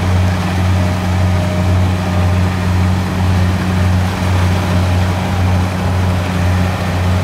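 Kubota DC70 combine harvester's diesel engine running steadily under load, a constant low drone.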